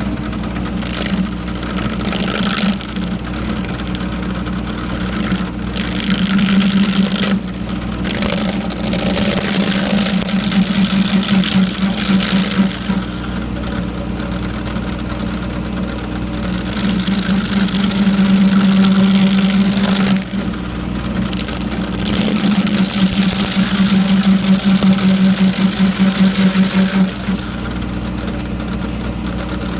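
Stump grinder running under load, its engine holding a steady drone while the carbide-toothed cutter wheel grinds into a tree stump, with waves of hissing noise as it cuts and a fast pulsing in level late on.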